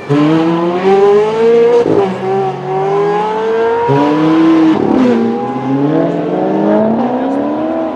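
Ferrari F430 V8 engines accelerating hard, one car after another. The pitch climbs steeply, then drops back at each quick upshift about every two to three seconds, and is loudest in the first two seconds.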